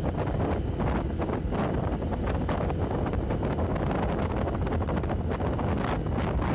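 Wind buffeting the microphone of a camera on a moving motorcycle: a steady rushing noise with frequent short gusts.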